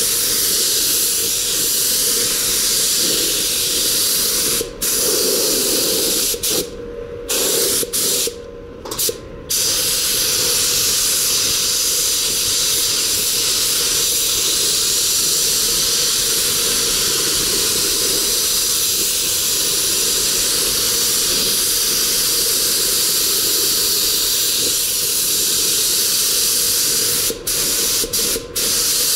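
Paint spray gun's compressed air hissing steadily as paint is sprayed onto car panels. It breaks off briefly several times where the trigger is let go, a few times about five to nine seconds in and three short times near the end.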